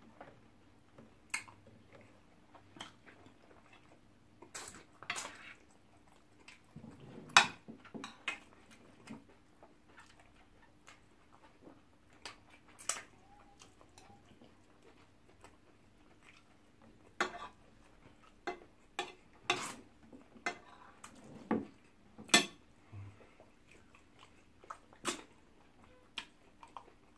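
Two people eating: scattered wet chewing and lip-smacking sounds, with short clinks of a fork and fingers against ceramic plates.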